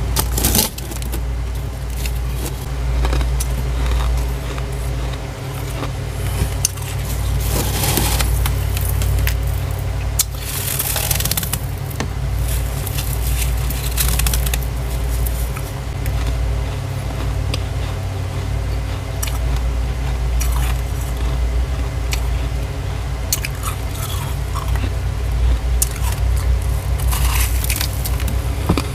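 Gloved hand scraping and scooping loose freezer frost: soft crunching and scraping, with louder crunches now and then. A steady low hum runs underneath.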